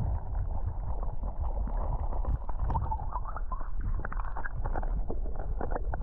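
Creek water heard by a camera held underwater: a muffled low rushing and gurgling, with many small clicks and knocks scattered through it.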